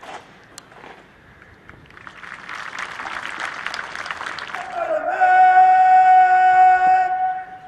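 A parade commander shouts a long, drawn-out word of command and holds it on one high pitch for nearly three seconds near the end. Before it comes a rising clatter of many quick impacts.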